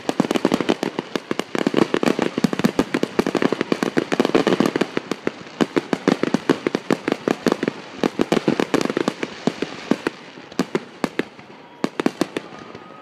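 Aerial fireworks going off in quick succession: a rapid stream of sharp bangs, several a second, thinning out and growing quieter over the last few seconds.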